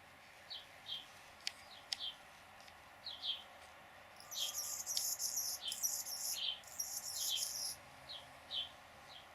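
Bird calling: short high chip notes repeated about twice a second, with a louder, high buzzy, scratchy phrase in several short pieces from a little before halfway until near the end.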